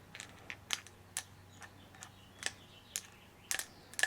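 Irregular sharp clicks and taps, about two a second, of small metal parts and tools being handled on a workbench, over a faint steady hum.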